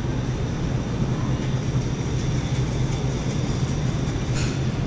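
Steady low hum and rumble of supermarket background noise, with a brief rustle about four and a half seconds in as a plastic-wrapped tray of chicken drumsticks is lifted from the case.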